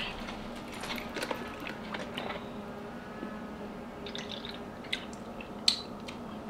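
Quiet kitchen handling: a little vinegar poured from a bottle into a bowl of sauce, with a few soft clicks and taps of the bottle and whisk, the sharpest near the end as the bottle is set down on the counter.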